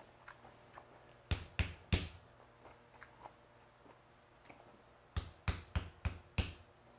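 A fist knocking on a room floor, three knocks about a second in and then five more about five seconds in. The knocking signals the kitchen to bring the snakehead porridge.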